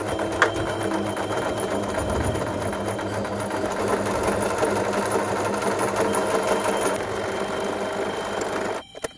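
Electric home sewing machine running steadily at speed as it stitches along the edge of a folded fabric strap, then stopping abruptly near the end, followed by a single sharp click.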